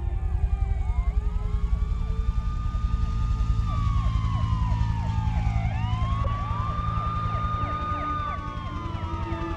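Several police car sirens wailing at once, their pitches rising and falling out of step with one another, over a low, rapidly throbbing rumble.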